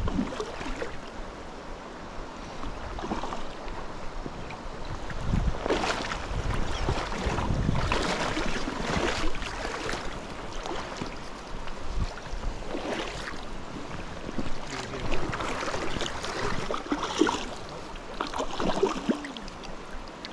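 Shallow creek water running over rocks, with irregular splashing and sloshing surges in the water.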